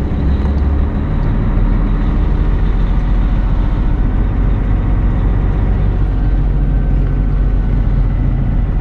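Hino tractor truck's diesel engine running steadily while driving, heard from inside the cab as a continuous low drone.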